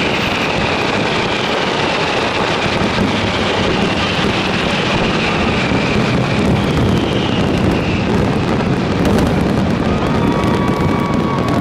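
Dense fireworks barrage: many overlapping bursts and crackles merging into one steady rumble. Music joins faintly near the end.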